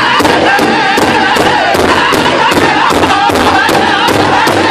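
Powwow drum group: many singers chanting together in unison over a large shared bass drum, which they strike with sticks in a fast, steady beat of about three strokes a second.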